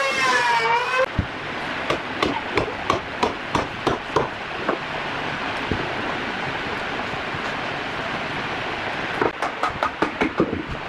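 Runs of sharp knocks, about three a second, like hammering, over a steady hiss: one run a couple of seconds in and another near the end. In the first second a wavering, siren-like tone with overtones rises and falls, then stops.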